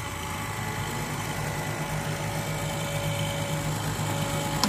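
Dump truck's diesel engine running steadily to power the hydraulic hoist as the bed tips up to full height, with a thin steady whine over the engine. The load of soil slides off the raised bed.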